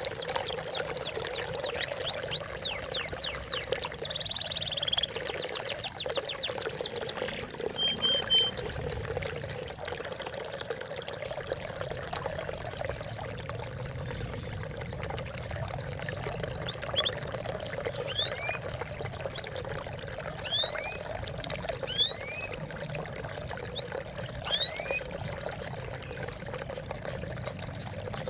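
Water trickling and splashing steadily, with birdsong over it: a fast trill of quick descending high notes in the first several seconds, then scattered short upswept chirps.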